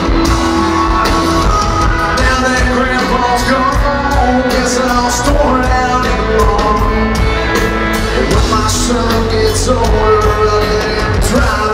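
Live band playing loud amplified rock-style music on electric guitars, keyboard and drums.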